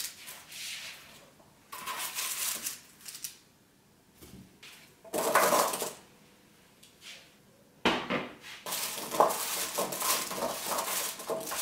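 Kitchenware handling: a spatula scraping across a baking tray as roasted potatoes are lifted into a glass dish, then parsnip sticks rustling and tapping as they are laid out on the parchment-lined tray. It comes in about four separate bursts with short pauses between, the longest near the end.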